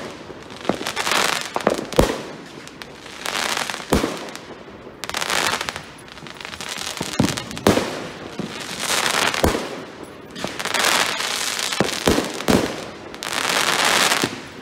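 Aerial fireworks shells bursting with about ten sharp bangs, some in quick pairs. Each burst is followed by a swell of dense crackling from gold crackling stars.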